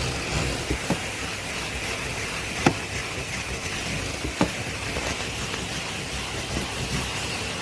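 Henry vacuum cleaner running steadily with its motor whine, and two sharp clicks a couple of seconds apart from debris or the nozzle knocking.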